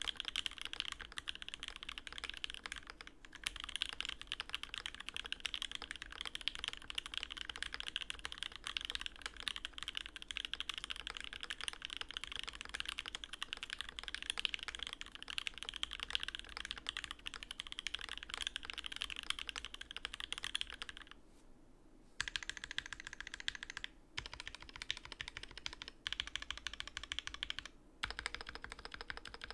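Fast, continuous typing on a custom Alice-layout mechanical keyboard with an acrylic case and plate, lubed and filmed Durock linear switches and GMK keycaps on a desk mat: a dense run of keystrokes. The typing breaks off briefly about three seconds in, for about a second around twenty-one seconds in, and a few more times near the end.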